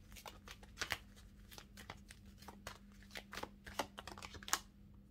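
Tarot cards being shuffled and handled by hand: a run of soft, irregularly spaced card clicks and flicks, over a faint steady hum.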